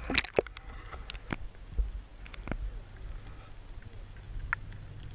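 Underwater sound picked up through a camera housing: a low steady rumble with scattered sharp clicks and knocks, several of them bunched together right at the start.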